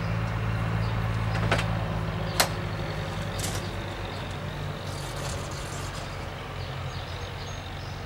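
Steady low hum of an idling engine, with two sharp clicks about a second apart in the first half.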